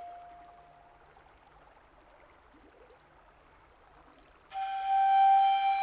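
Background score: a held flute note fades away, then after a few seconds of near silence a new sustained flute note comes in suddenly, about four and a half seconds in.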